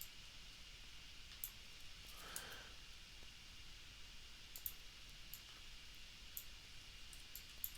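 Sparse, isolated clicks from a computer mouse and keyboard over quiet room tone.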